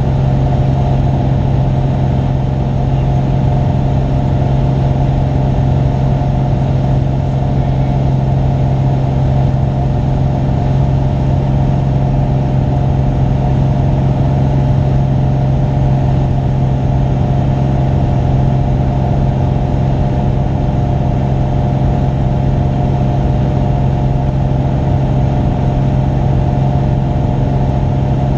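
Single-engine light aircraft's engine and two-blade propeller droning steadily in flight: a strong, even low hum with many steady overtones.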